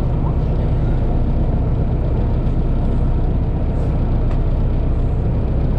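Narrowboat engine running steadily as the boat cruises along the canal, a constant low rumble.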